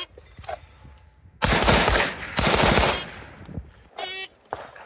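Two quick strings of handgun shots fired on drills from the holster, loud and close together. Near the end comes a short electronic beep, a shot timer's start signal.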